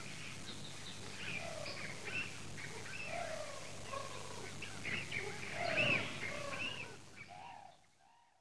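Many birds calling and chirping over one another, fading out near the end.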